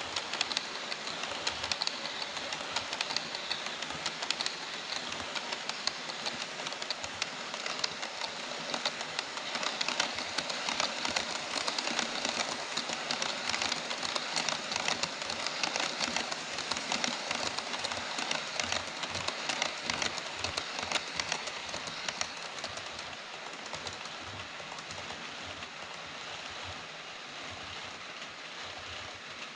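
Wheels of an HO scale model freight train's tank and container wagons rolling past on sectional track: a steady, rapid metallic clatter with fine clicks over the rail joints, fading over the last several seconds as the end of the train passes.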